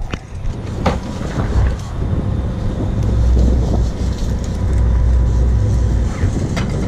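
Low rumble of a sport-fishing boat's engine running, mixed with wind buffeting the microphone and swelling and fading unevenly. There are a couple of sharp knocks in the first second.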